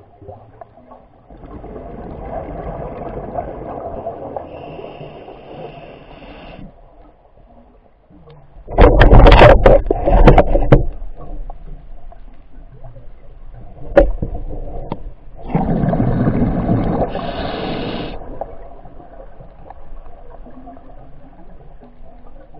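Underwater sounds heard through a camera housing: two spells of rushing, gurgling bubbles, one of about five seconds and one of about two and a half. Between them comes a burst of loud knocks and crackles about nine seconds in, and a single knock a few seconds later.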